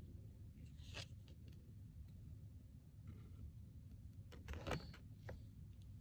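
Oracle cards being handled: faint papery swishes as cards are slid across one another, one about a second in and a louder one about four and a half seconds in, over a low steady hum.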